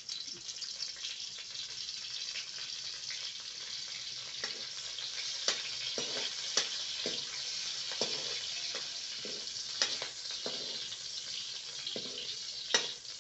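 Green chillies sizzling in hot oil in a kadhai, stirred with a ladle that scrapes and knocks against the pan every so often, the sharpest knock near the end.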